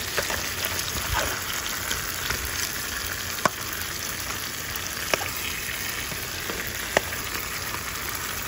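Masala-seasoned armored catfish (hassa) sizzling steadily as it fries in an aluminium pot. A metal spoon clinks sharply against the pot three times as the fish is turned.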